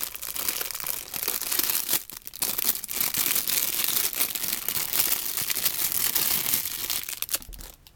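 Packaging crinkling and rustling as an action figure is unwrapped and pulled out, with a short pause about two seconds in and a quieter stretch near the end.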